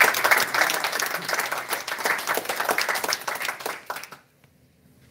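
A small audience applauding with rapid, dense clapping that dies away about four seconds in.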